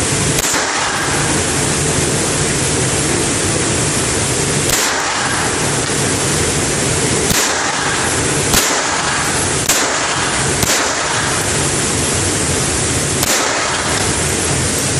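Single shots from a semi-automatic pistol at an indoor range, about seven of them, spaced irregularly one to four seconds apart, over a constant loud rushing noise.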